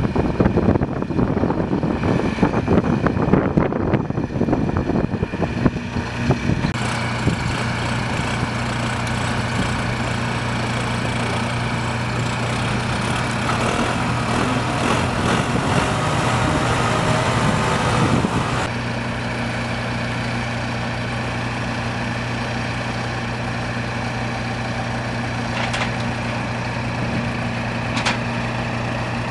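Tractor diesel engines running as orange utility tractors are driven on the tilted bed of a rollback truck. Rough, uneven noise for the first few seconds, then a steady low engine drone that grows louder for about five seconds in the middle, as under throttle, before settling back; two short clicks near the end.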